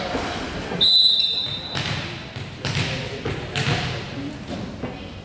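A referee's whistle blows once about a second in, a short steady blast: in volleyball the signal for the server to serve. Players and spectators chatter around it, echoing in a large gym.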